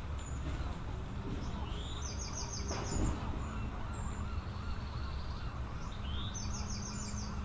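A large flock of feeding birds calling over a steady low rumble, with many small overlapping calls, short high whistles, and a rapid chattering call of about six notes heard twice. A brief low thump about three seconds in.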